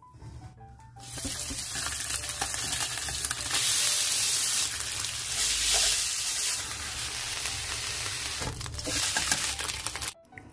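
Sliced raw chicken breast sizzling in a nonstick frying pan as it is stirred with chopsticks, with shredded crab sticks frying toward the end. The sizzle starts about a second in, runs steadily, and cuts off suddenly near the end.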